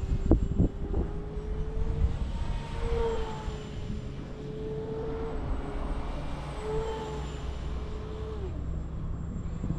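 Electric motor and propeller of a Multiplex Blizzard RC model plane whining, the pitch rising and falling with throttle and sliding down near the end, over low wind rumble. A few low thumps in the first second.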